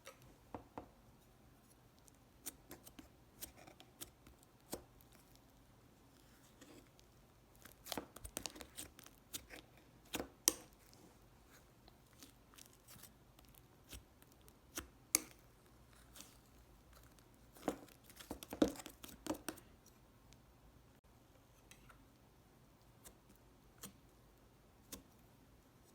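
Slime being handled: scattered sticky clicks and small pops as it is pressed and pulled, in irregular clusters.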